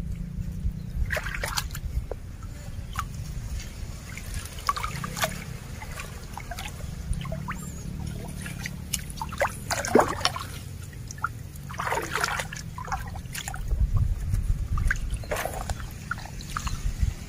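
Shallow muddy stream water sloshing and trickling as a bamboo stick is worked through it, with several brief splashes, the biggest about ten and twelve seconds in, over a steady low rumble.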